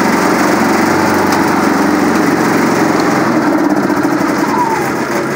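Generac portable inverter generator running steadily while it powers battery chargers.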